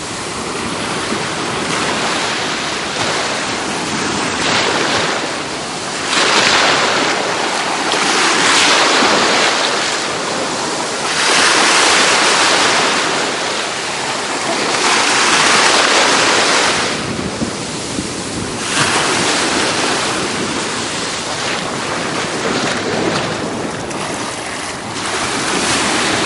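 Ocean surf washing at the shoreline, mixed with wind buffeting the microphone; the noise swells louder and eases off every few seconds.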